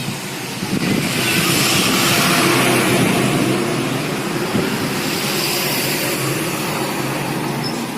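Motor vehicle passing close by: engine and road noise swell about a second in, then slowly fade.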